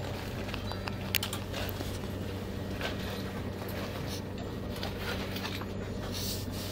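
Steady low hum inside a train carriage, with scattered rustling and clicking from a bag and plastic wrapper being handled close by, the sharpest click about a second in.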